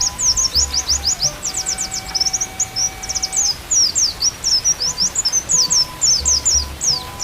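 White-eye (pleci) singing a fast, unbroken twittering song of quick sweeping chirps, over a few soft held flute notes.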